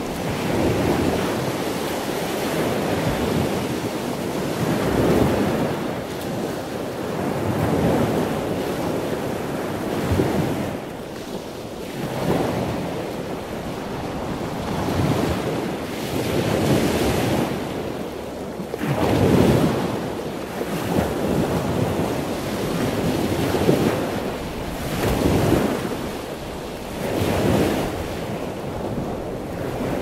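Ocean waves breaking and washing in, the surf noise rising and falling every few seconds, with wind on the microphone.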